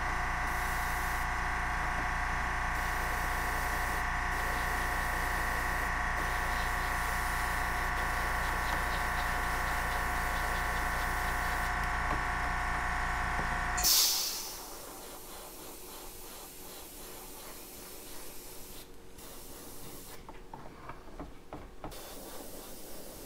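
Airbrush air compressor motor running steadily with a hum and a whine, then cutting out about 14 seconds in with a short burst of hissing air.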